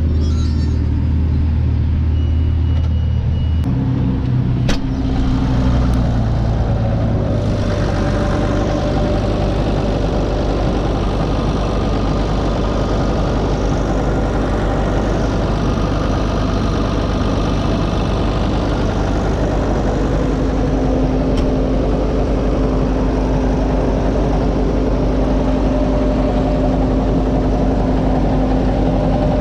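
Deutz-Fahr tractor engine running steadily. It is first heard as a low hum from inside the cab, then after about four seconds from close beside the tractor.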